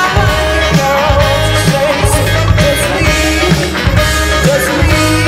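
Loud dance music with a sung vocal over a heavy, pulsing bass line.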